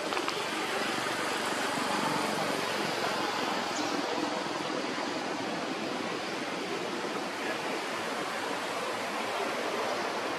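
Steady outdoor rushing noise, an even hiss with no distinct events in it.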